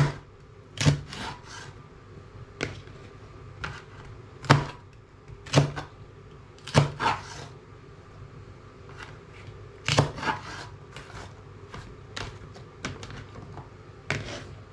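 Kitchen knife chopping carrot and okra on a plastic chopping board: single sharp knocks of the blade on the board, spaced irregularly about every second or two.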